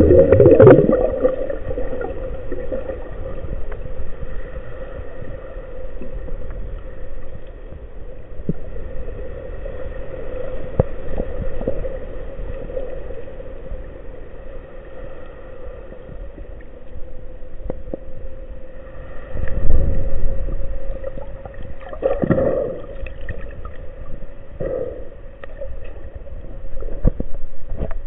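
Muffled underwater sound picked up by a camera in its waterproof housing: a steady hum under a low wash of water noise, with louder rushes of water at the start, about twenty seconds in, and a few more times near the end.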